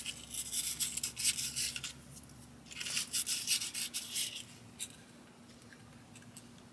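Homemade tortilla chips rustling and crackling against the paper lining of a plate as they are handled and picked up by hand, in two bursts of a second or two each, followed by a few single clicks.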